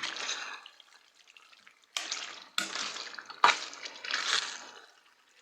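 A spoon stirring pasta through a thick tomato and cream sauce in a pot: several wet, scraping strokes, each starting sharply, with short quiet gaps between them.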